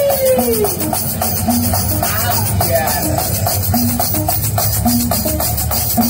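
Loud backing music for a stage act, with a fast, even percussion beat and a melody line; a sliding tone falls away in the first second.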